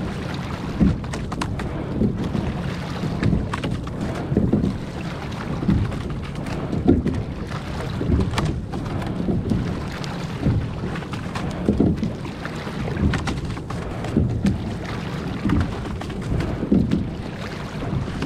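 Rowing boat under way: oar strokes and water washing along the hull come in a regular rhythm, a swell of sound a little more than once a second, with a few short clicks among them.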